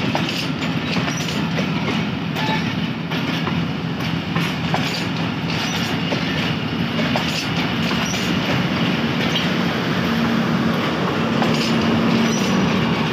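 Passenger train coaches rolling past as the train pulls out, wheels clicking over the rail joints with a faint wheel squeal now and then, over a steady low hum.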